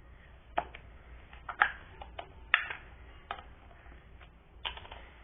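Small plastic slime containers being handled and set together, giving about five sharp clicks and taps a second or so apart.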